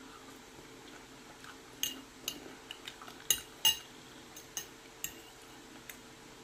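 A metal spoon clinking against a dinner plate: about ten sharp, short clinks, starting about two seconds in, the loudest two in the middle. A faint steady hum runs underneath.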